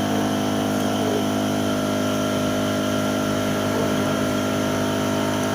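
Air compressor motor running with a steady hum at one constant pitch.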